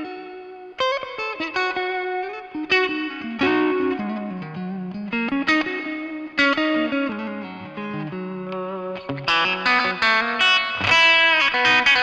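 Gillmore GFT 15 Telecaster-style electric guitar played through a Boss Katana amplifier: picked notes and chords ringing out and decaying between strikes. About nine seconds in the playing turns brighter, denser and louder.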